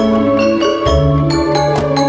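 Background music: bright struck mallet-percussion notes in a quick pattern over a held bass line.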